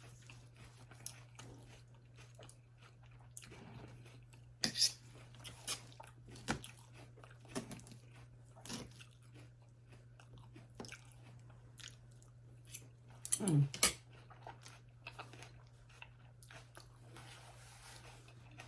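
Close-miked chewing: irregular wet mouth clicks and soft crunches as a person bites and chews food, over a steady low hum, with one brief louder low sound about 13 seconds in.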